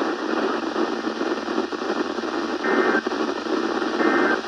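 NOAA Weather Radio reception thick with static hiss. Two short data-tone bursts of an Emergency Alert System end-of-message signal come about a second and a third apart in the second half.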